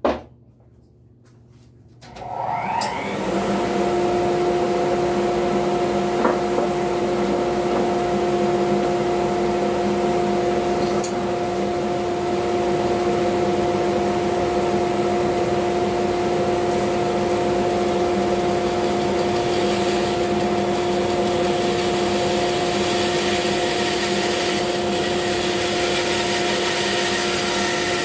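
A bandsaw is switched on about two seconds in. Its motor comes up to speed, then runs with a steady hum while the blade cuts through a thick glued-up block of laminated scrap wood. There is a single click about eleven seconds in.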